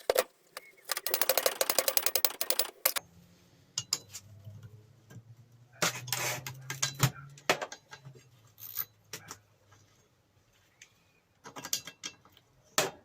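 Metal hand tools clicking and clinking on a bench grinder as it is taken apart: a fast, even run of ratchet-like clicks in the first few seconds, then scattered sharp metal clinks. A low steady hum runs through the middle.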